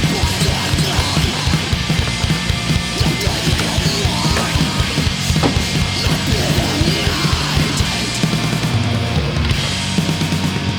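Loud, heavy rock music with drums.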